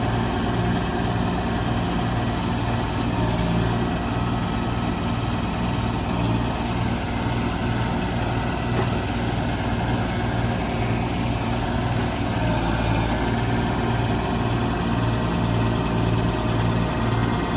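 Heavy engine of log-loading machinery running steadily.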